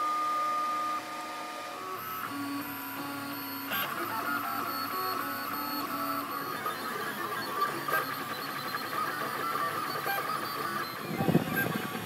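Ultimaker 3D printer printing: its stepper motors whine in steady tones that jump from pitch to pitch as the print head changes speed and direction. Near the end a louder, rougher motion noise joins in.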